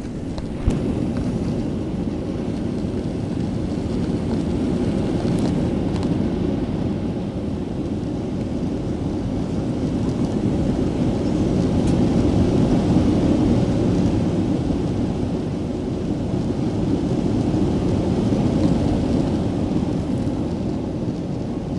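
Steady low rumble of jet engines and rushing air heard inside the cabin of an Airbus A330 airliner, swelling slightly midway, with one sharp click less than a second in.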